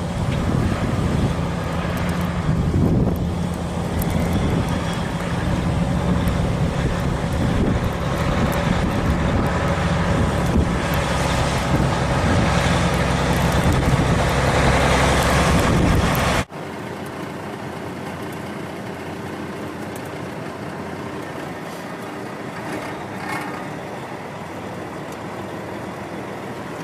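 Heavy truck engine running with a steady low drone. About sixteen seconds in it cuts off abruptly, and a quieter steady vehicle hum takes over.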